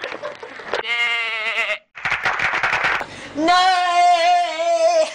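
A young man's voice wailing in long, wavering held notes, twice, with a hoarse breathy rasp between them.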